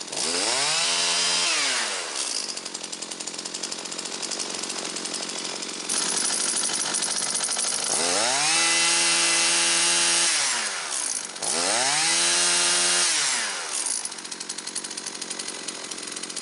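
Husqvarna 325P4 pole saw's two-stroke engine being revved up three times and dropping back toward idle between, on a test run after a chafed-through spark plug wire was repaired.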